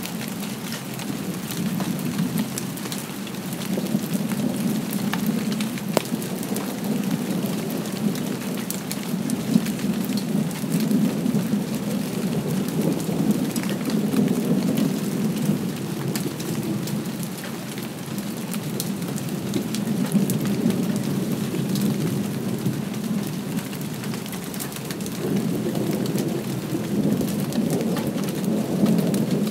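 Light rain falling, with separate drops ticking, under a low rumble of distant thunder that swells and fades several times.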